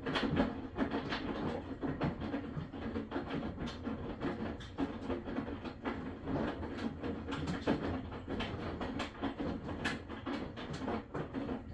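Maytag washing machine running: a steady mechanical hum with irregular clicks and knocks through it.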